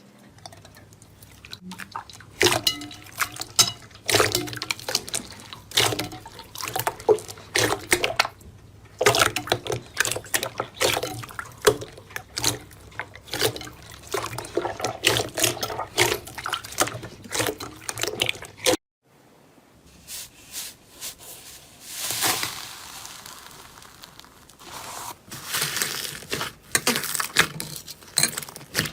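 Slime being squeezed and worked by hand, making many wet clicks and pops. It cuts off suddenly about two-thirds of the way through and gives way to a softer, hissier squishing.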